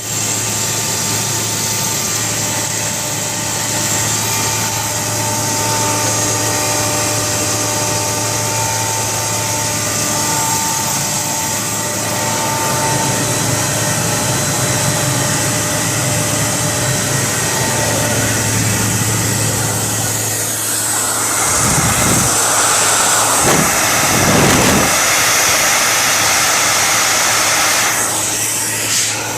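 2004 Kaeser 40 HP rotary screw air compressor running with a steady hum. About two-thirds of the way through, a louder rushing noise joins it and then cuts off shortly before the end.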